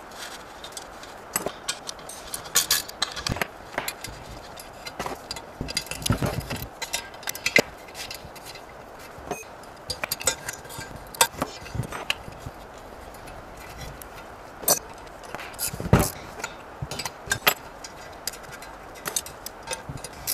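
Steel spanners, nuts and studs clinking and tapping against one another and against an aluminium single-cylinder engine block as studs are threaded in and the nuts wound on and tightened. Irregular sharp metallic clicks, with a louder knock about sixteen seconds in.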